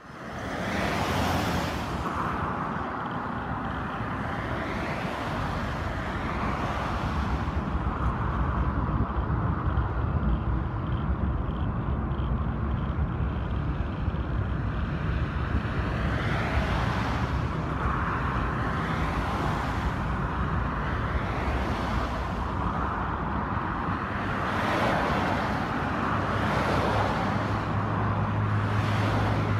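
Road traffic: vehicles passing one after another, each swelling and fading over a steady low rumble, with a deeper steady hum coming in near the end.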